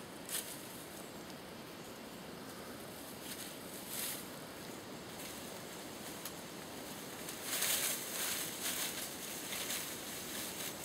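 Rustling and scraping of a person moving at the foot of a tree in dry leaves, over a steady background hiss. There is one brief rustle near the start, another about four seconds in, and a run of them in the last three seconds.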